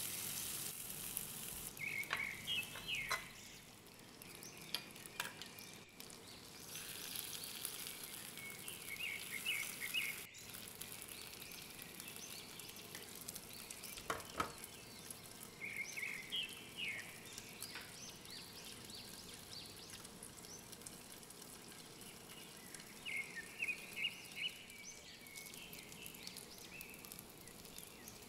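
Chicken tikka skewers sizzling quietly on a nonstick grill pan, with a few sharp clicks. Short bursts of high chirping come several times and are the loudest sounds.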